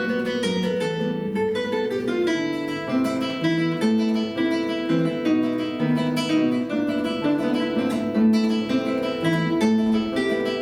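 Two acoustic guitars playing together, a flowing instrumental with a moving bass line under plucked and strummed chords.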